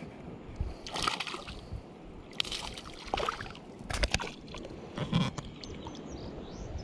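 Hooked smallmouth bass thrashing at the surface on the line, making about five separate splashes over a few seconds.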